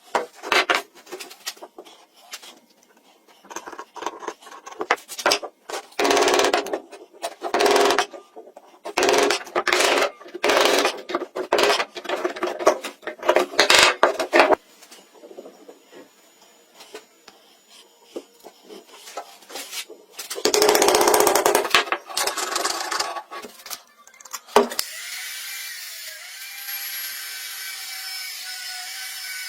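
A hand tool rasping or sawing on wood in a run of short, irregular strokes, with a single longer stroke a little after twenty seconds. From about twenty-five seconds, a steady hiss with faint whining tones takes over.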